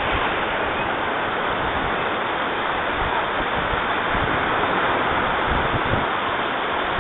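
Black Sea surf washing steadily on the beach, a continuous rushing noise.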